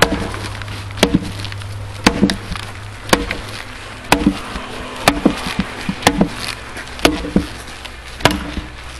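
Leveraxe splitting axe chopping into a firewood round, about nine sharp blows at roughly one a second, splitting slices off around the edge of the log.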